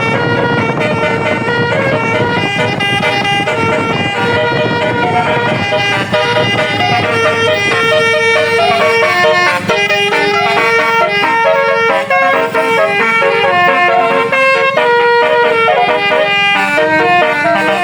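A bus's 24-note basuri telolet air horn playing a tune, a run of stepped, held horn tones one after another. The bus engine rumbles under the first part.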